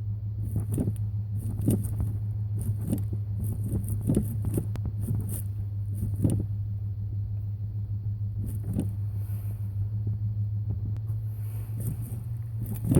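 A car engine running steadily with a low, even hum, with irregular sharp knocks and clunks over it.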